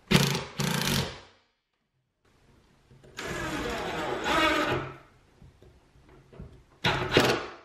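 DeWalt cordless drill driving screws through a steel L-bracket into a wall stud. It gives two short bursts, then a longer run of about a second and a half a little after three seconds in, then quick short bursts near the end.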